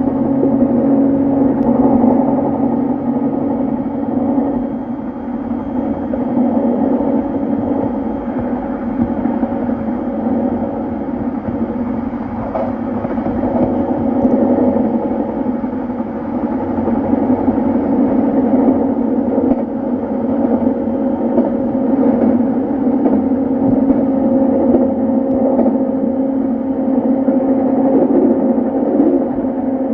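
Running noise on board a JR E233-series electric train's motor car (MoHa E232) between stations: a steady rumble of the train on the rails with a steady hum from the drive. A few lower tones drop away about four seconds in.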